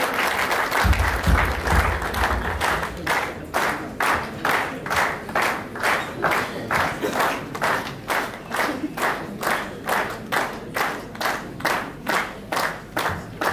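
Audience applause that settles into steady rhythmic clapping in unison, about two to three claps a second. A brief low thumping comes about a second in.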